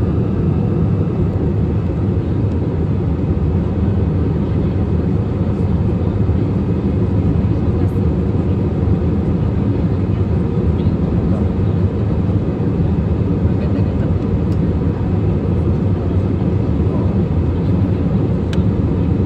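Airliner cabin noise in flight: the steady, even sound of the engines and airflow, loud and strongest low down, with a few faint steady tones.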